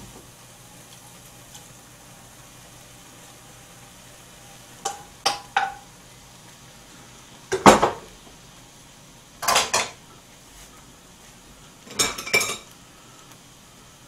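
Metal spoon clinking and scraping against a wok as food is stirred, in four short bursts: three quick taps about five seconds in, the loudest knock near eight seconds, then two more clattering bursts.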